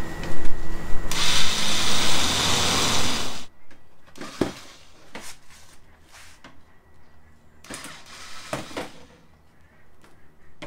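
Cheap cordless electric screwdriver whirring for about three and a half seconds as it turns a screw-centred plastic panel clip, then stopping. A few light plastic clicks follow.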